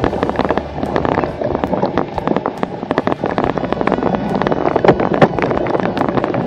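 Dense, rapid clatter of knocks and rattles from an action camera jolting on a cyclocross bike as it is run up a dirt climb, with wind rumbling on the microphone.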